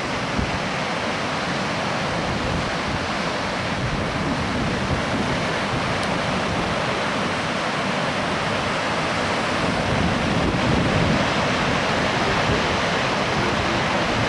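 Surf breaking on a sandy beach, a steady wash of waves, with wind buffeting the microphone. A little louder in the last few seconds.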